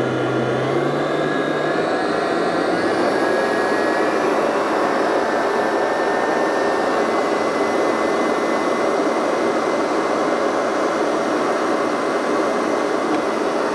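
Kenwood stand mixer motor running steadily while its beater works donut dough of flour, liquids and melted butter; the whine rises in pitch over the first few seconds as it speeds up, then holds level.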